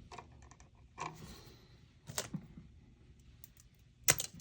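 Scattered small clicks and taps of hands handling electrical wires and tools at an outlet box, with a sharper double click near the end.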